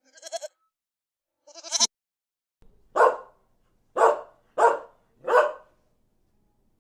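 Two short quavering bleats from a goat, then a dog barking four times.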